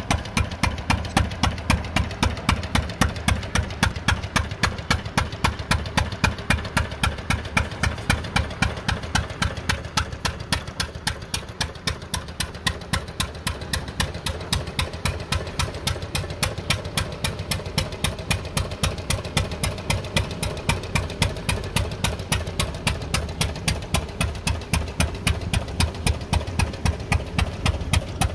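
Arrow C-96 single-cylinder engine running steadily at a slow, even pace, about three sharp exhaust beats a second, as it drives a Parkersburg 142 oilfield pumping unit.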